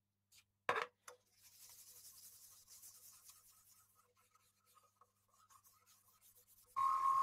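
A paper towel rubbing paste wax into an ash bowl by hand, a faint scratchy rubbing with small ticks, after a single sharp knock about a second in. Near the end a much louder pitched tone starts.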